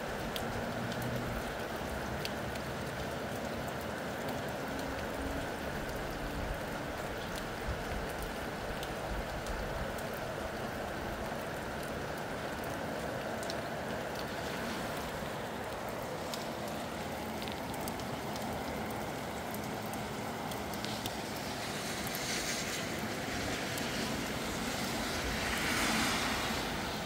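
Steady rain falling, with scattered drops pattering and wind in the background. Near the end a louder rushing swell builds and fades.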